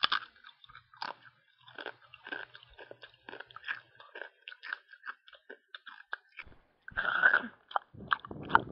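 Cartoon character chewing and crunching noisily with the mouth open: a fast, irregular run of short wet crunches, with a louder burst about seven seconds in.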